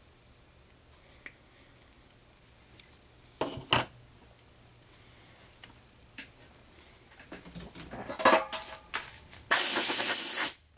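A few taps and small clatters of tools and parts being handled, then a blast of compressed air about a second long near the end, blowing dust off before the glass goes on.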